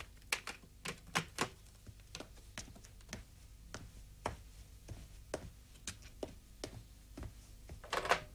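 A series of sharp taps and clicks, about two or three a second and a little uneven, with a quick cluster of clicks near the end.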